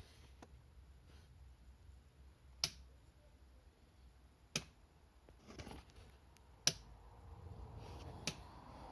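Four sharp single clicks a couple of seconds apart from a 2010 Yamaha XMAX 125 scooter's starter relay as the start button is tried and the engine does not start: the faulty starter relay.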